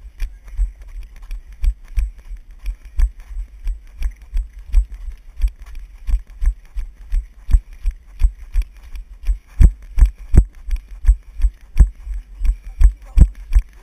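A runner's footfalls on a muddy dirt trail, picked up by a body-worn GoPro camera as steady low thumps about three a second.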